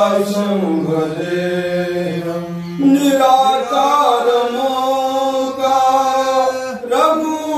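Men chanting mantras in long held notes. The pitch steps up about three seconds in and holds steady.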